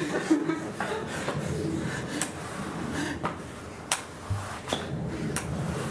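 A walking stick and slow steps on a stage floor: a handful of sharp taps and knocks about a second apart over low room noise.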